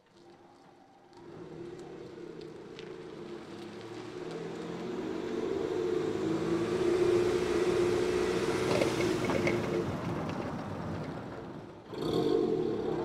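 A car driving past on a street: its engine and tyres swell as it approaches, peak, then fade as it moves away. Near the end a different, steady sound starts abruptly.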